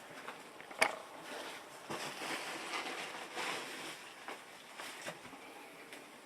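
Light handling noises: a sharp click about a second in, then soft rustling and a few faint taps, as a plastic coin tube and packaging are handled.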